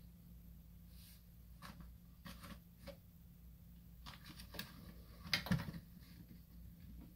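Faint handling noise: scattered light clicks and rustles over a low steady hum, with a louder knock about five and a half seconds in.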